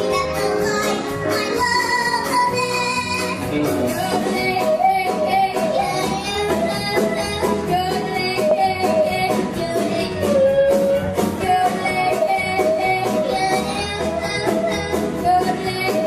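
A girl ventriloquist singing a song into a microphone, holding long wavering notes over backing music with a steady beat.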